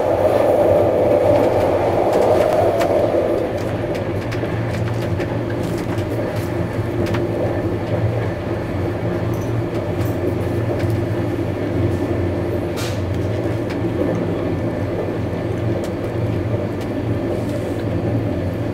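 Steady running noise inside a compartment of a type 136A passenger coach at speed: wheels rolling on the rails over a low rumble, a little louder for the first three seconds or so, with a few faint clicks.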